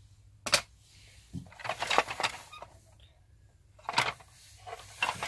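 Hard plastic clicks and clatter from the opened Bigtrak toy being handled: a sharp knock about half a second in, a cluster of rattling clicks around two seconds, and another sharp knock about four seconds in.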